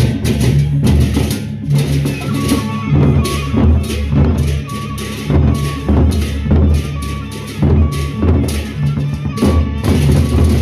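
Gendang beleq ensemble playing: large double-headed barrel drums beaten in a fast driving rhythm, with hand cymbals clashing and a short high metallic note ringing about once a second.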